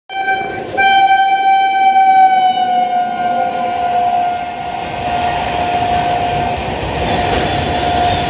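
Indian Railways freight train passing close by, its locomotive horn sounding a short blast and then one long held blast over the rumble and rattle of hopper wagons rolling along the track.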